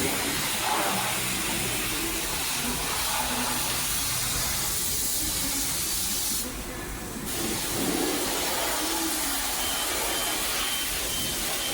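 High-pressure spray from a self-serve car wash wand hissing steadily as it blasts dirt off a refrigerator. It cuts off for about a second about two-thirds of the way through, then starts again.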